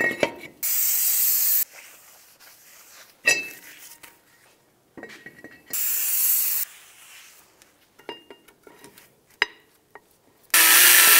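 Aerosol can of brake parts cleaner spraying in two hissing bursts of about a second each, with light metal clicks of brake parts being handled between them. A louder burst of about a second comes near the end.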